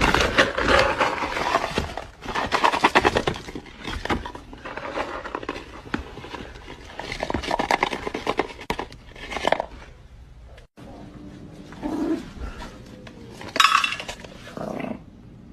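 Dry dog kibble rustling and rattling as it is scooped out of its bag with a plastic cup and poured into stainless steel bowls, the pellets clinking against the metal. Near the end come a couple of short vocal sounds.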